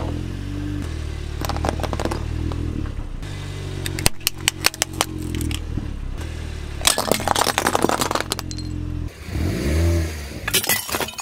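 A car engine runs with a steady low hum while the tyre rolls over plastic toys, giving several bursts of cracking and snapping plastic, about two, four and seven seconds in. Near the end there is a short wavering tone.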